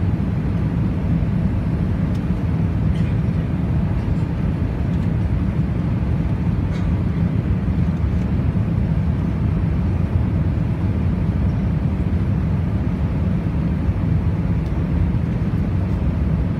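Steady low rumble of an Airbus A380's cabin in flight: engine and airflow noise heard from a passenger seat, with a few faint clicks.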